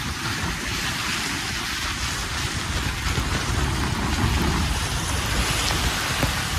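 Steady driving noise inside a car's cabin: a low engine and road rumble under an even hiss.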